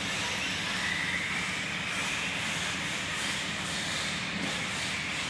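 Electric off-road RC cars running on a dirt track: a high motor whine that slowly rises and falls over a steady hiss.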